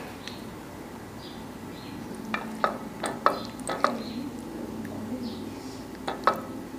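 A metal fork clinking against a ceramic plate as it cuts through a piece of lasagna: a quick run of sharp clinks about two seconds in, then two more near the end.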